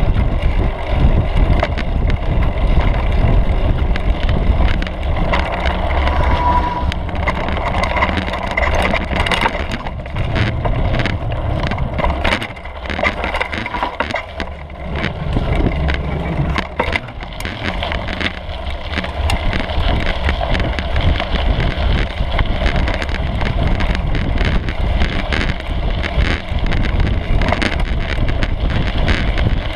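Mountain bike ridden fast along a dirt singletrack: steady low rumble of wind on the microphone and tyres on the trail, with rattling knocks and clicks from the bike over bumps and roots, thickest through the middle.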